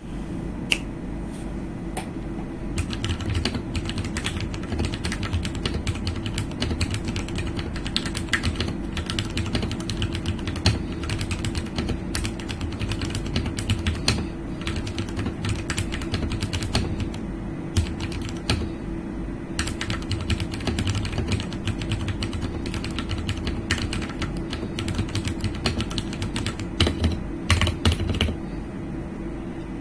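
Typing on a Ducky One 2 Mini mechanical keyboard with tactile Cherry MX Brown switches: a continuous stream of keystrokes, with a few louder strokes scattered through.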